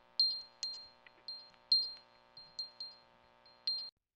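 A run of about nine short, bright bell-like pings at uneven spacing, each at the same high pitch and dying away quickly, over a faint steady tone. It cuts off suddenly near the end.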